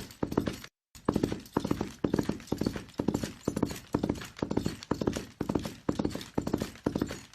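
Horse galloping: hoofbeats falling in quick clusters, about two strides a second, with the sound cutting out completely for a moment about three quarters of a second in.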